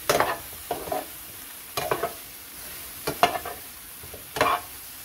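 Cauliflower florets frying in oil in a nonstick pan, with a steady sizzle, while a metal spoon turns them: about five scraping strokes of the spoon against the pan, roughly one a second. The cauliflower is nearly done frying.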